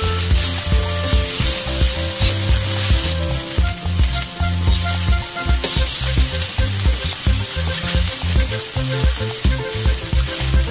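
Fried rice sizzling in a stainless steel wok while a slotted metal spatula stirs and scrapes it, with frequent clinks of metal on metal.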